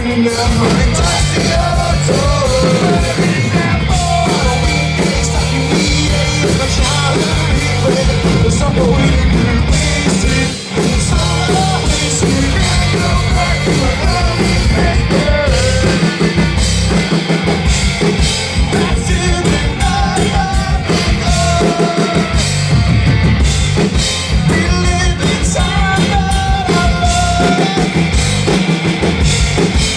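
Live rock band playing at full volume: drum kit, bass and other instruments, with a singer's voice over them.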